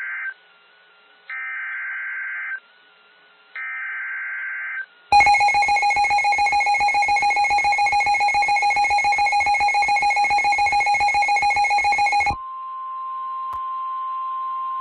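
Emergency Alert System broadcast tones. Three raspy bursts of SAME digital header data open a new alert, then the harsh two-tone EAS attention signal sounds for about seven seconds and cuts off. A steady single-tone warning alarm follows.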